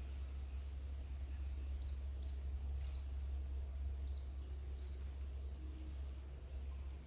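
Steady low hum with a string of short, high chirps from a small bird, about eight of them over some four seconds, starting about a second in.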